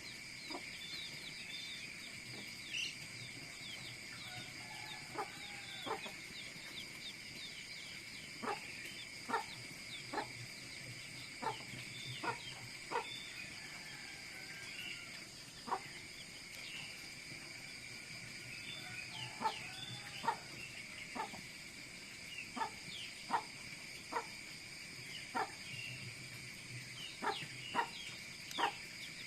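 Burning vegetation crackling: short, sharp snaps and pops at irregular intervals, busier in the second half, over a steady high-pitched insect chorus.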